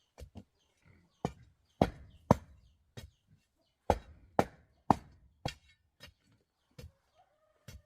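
A series of sharp knocks, about two a second and uneven in strength, the loudest a couple of seconds in and again around four to five seconds in.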